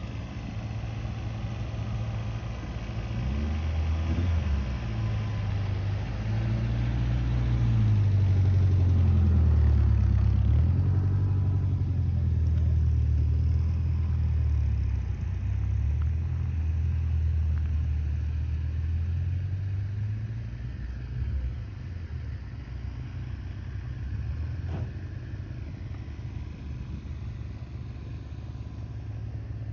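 A car engine rumbling low, swelling to its loudest several seconds in and fading away after about twenty seconds.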